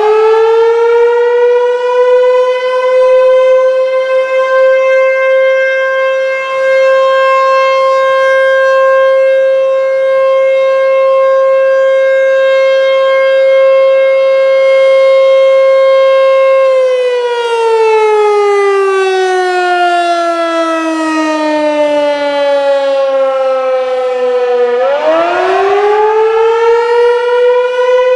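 American Signal T-128 outdoor warning siren sounding its fire test signal. It finishes winding up to full pitch, holds one steady tone for about seventeen seconds, then winds down in a long falling glide. Near the end it winds back up, rising to full pitch again.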